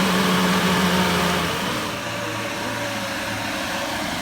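A vehicle's engine running under a steady rushing noise. About a second and a half in, its note drops lower and quieter as the revs fall.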